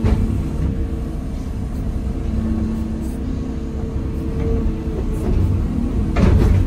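Excavator's diesel engine and hydraulics running, heard from inside the cab, with a steady rumble and a hydraulic whine that comes and goes as the boom and bucket are worked. A short loud clatter comes about six seconds in.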